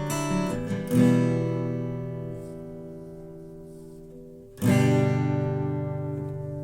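J. White AH GC100 PHX acoustic guitar (solid ash top, mahogany back and sides, D'Addario steel strings) being played. A few quick picked notes lead into a chord strummed about a second in that rings and fades. A louder full chord is strummed at about four and a half seconds and left to ring out.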